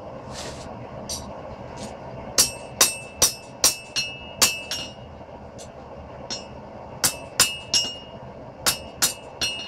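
Hand hammer striking hot steel on an anvil in two runs of blows about two to three a second, with a pause of about two seconds between them; each blow leaves a short ringing tone from the anvil. The smith is hammering down a freshly forge-welded spot in an iron knife blank. A steady hum runs underneath.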